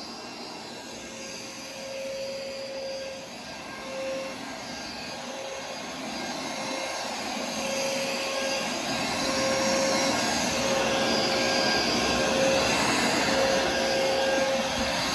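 Vacuum cleaner running steadily, getting louder over the middle of the stretch.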